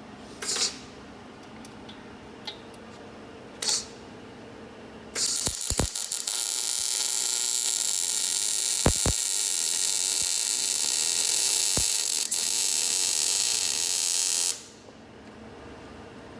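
Welding arc on the anti-roll bar mounts: two brief tack-length bursts in the first few seconds, then a continuous crackling, sizzling weld bead of about nine seconds that stops abruptly near the end.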